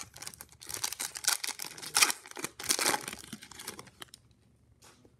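Plastic wrapper of a 2018-19 Upper Deck MVP hockey card pack being torn open and crinkled in the hands, stopping about four seconds in.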